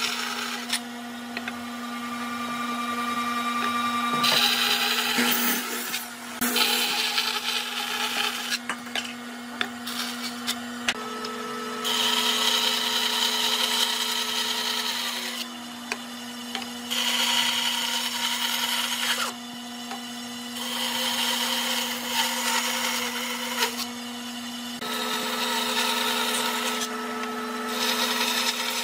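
Band saw running with a steady motor hum while its blade cuts through wooden boards, the cutting noise swelling and dropping away several times as each cut starts and finishes.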